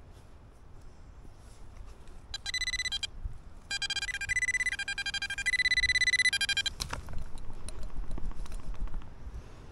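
Electronic beeping: a high tone pulsing rapidly, first in a short burst, then in a longer one of about three seconds that alternates between steady and choppier stretches. A sharp knock comes just as it stops.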